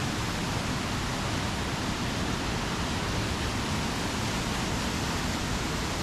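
Steady rushing of a waterfall cascading over rocks, an even unbroken roar of water.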